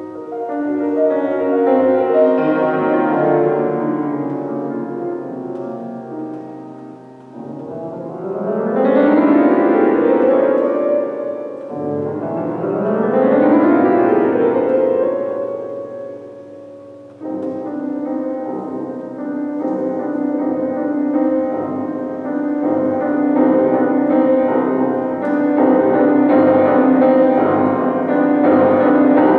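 Solo grand piano playing a classical concert piece. Two sweeping runs rise from the bass in the middle. A little past halfway a dense passage of rapidly repeated chords breaks in suddenly and grows louder toward the end.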